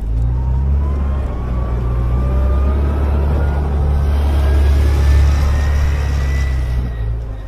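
A motor vehicle running close by, with a heavy low rumble and a whine that climbs slowly and steadily in pitch for several seconds before easing off near the end.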